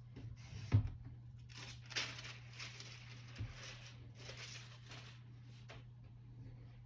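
MacBook Pro packaging being handled: paper or plastic wrapping rustles and tears in several short strokes, with a soft thump just under a second in. A steady low hum runs underneath.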